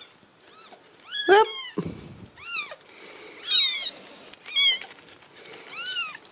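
Very young Ragdoll kittens mewing: about five short, high-pitched calls that rise and fall in pitch, roughly a second apart.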